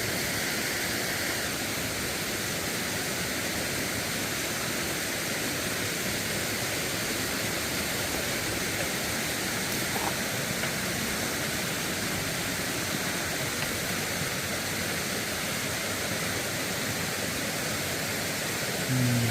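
Small waterfall pouring into a rock pool, a steady rushing of water. A brief low sound comes just before the end.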